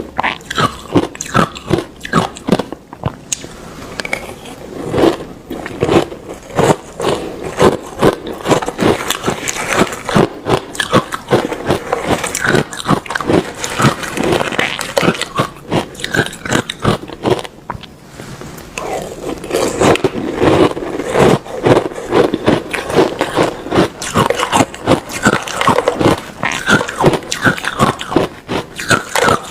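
Ice being bitten and chewed: a fast run of loud, sharp crunches, with a couple of brief pauses between mouthfuls.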